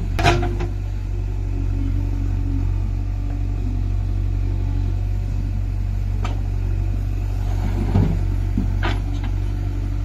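Diesel engines of a JCB 3DX backhoe loader and a tractor running steadily with a deep hum while the backhoe digs and loads mud. A few clanks and knocks come from the working bucket, the loudest just after the start.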